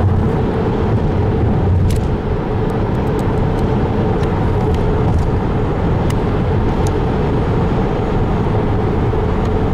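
Steady road and engine noise of a car cruising at highway speed, heard from inside the cabin, with a few faint clicks.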